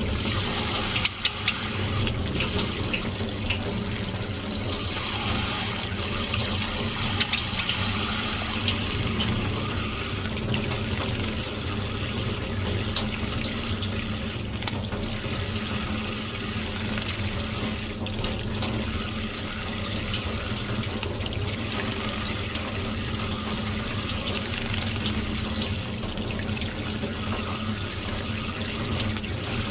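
Water running steadily from a tap into a sink, with a couple of sharp knocks about a second in.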